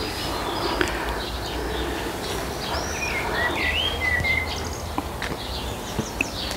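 Songbirds singing in a garden: scattered chirps and short whistled notes, with a brighter rising-and-falling call about three seconds in, over a steady low rumble.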